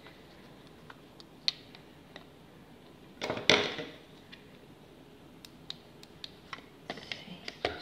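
Handling noises around a plastic measuring jug of liquid soap: scattered light clicks and taps, with one louder clatter lasting under a second about three and a half seconds in, and a quick run of taps near the end.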